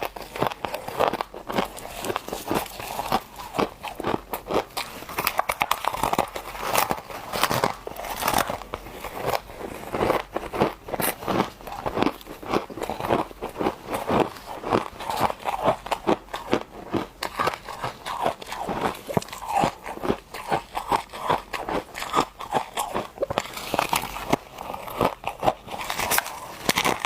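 Close-up crunching and chewing of frozen humidifier frost chunks in the mouth: rapid, continuous crisp crunches with no pause.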